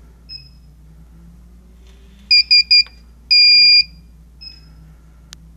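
Sorhea Solaris infrared barrier receiver column's control-board beeper sounding three quick beeps, then one longer beep: the column has entered alignment mode and is on cell one, the bottom beam. Fainter single beeps come before and after, and a sharp click sounds near the end.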